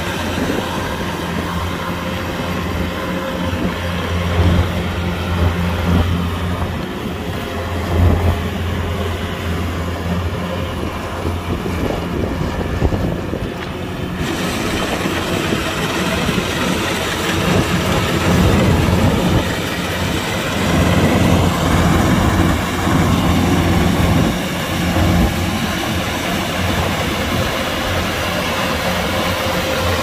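Kubota DC-105X combine harvester running: a steady, loud engine drone with a dense mechanical clatter. About halfway through, the sound turns suddenly brighter and hissier.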